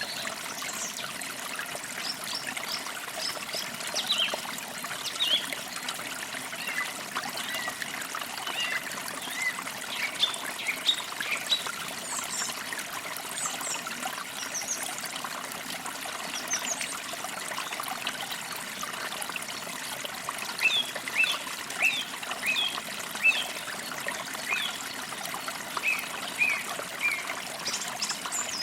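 Creek water trickling and flowing steadily over stones, with birds chirping throughout in short high calls, busiest in bouts about a third of the way in and again toward the end.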